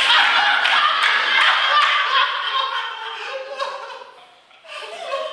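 Live audience applauding and laughing, the sound fading away about four seconds in, then swelling again briefly near the end.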